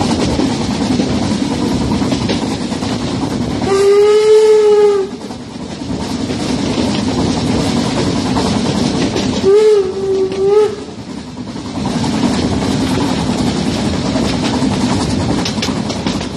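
Harz narrow gauge steam locomotive sounding its whistle: one long blast about four seconds in, then a second blast, wavering in pitch, about six seconds later. These are warning blasts at a whistle board ahead of a level crossing. The train's steady running rumble and clatter on the track, heard from an open carriage window, carries on throughout.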